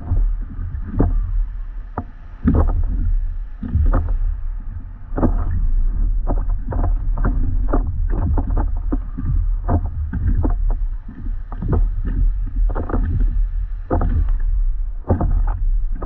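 Stand-up paddleboard paddle dipping and splashing through the water in repeated strokes, roughly one to two a second, over a steady low rumble.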